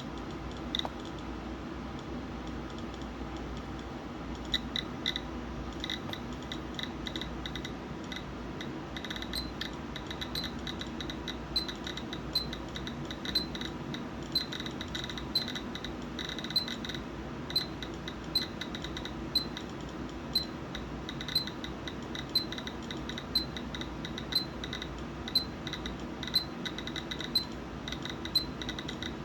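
Radiation detector clicking as it registers radiation from a smoke detector's americium-241 source. The clicks come irregularly at first, then settle into an even click about once a second from about twelve seconds in. A faint steady hum sits underneath.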